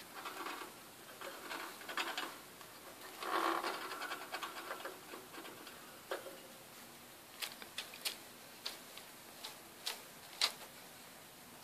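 A small hamster scrabbling, its claws making bursts of fast, light ticking, followed by several sharp separate clicks in the second half.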